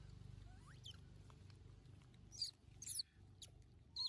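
Young macaques giving short, thin, high-pitched squeaks, several in quick succession, the loudest a little past halfway and again at the end.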